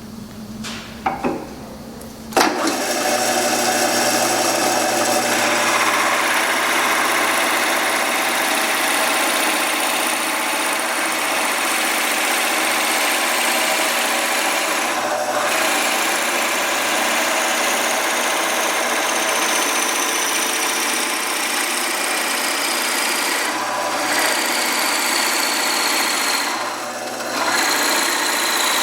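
An electric woodworking power tool switches on after a couple of clicks and runs steadily, with a few brief dips in level and a faint high whine that slowly falls in pitch.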